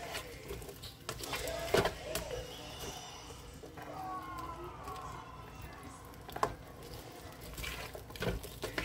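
Plastic spatula stirring chopped onions in hot oil in a nonstick frying pan: a faint sizzle with a few scrapes and knocks of the spatula against the pan.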